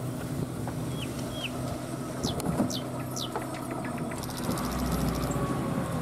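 Vehicle engine running at a steady low hum as it drives slowly, with birds calling over it: two short falling whistles about a second in, then three quick falling whistles about midway. A rapid high pulsing and a low rumble come in near the end.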